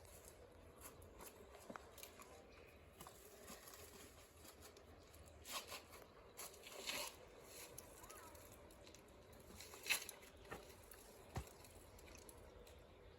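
Near silence, broken by a few faint, short rustles and scrapes; the sharpest comes about ten seconds in.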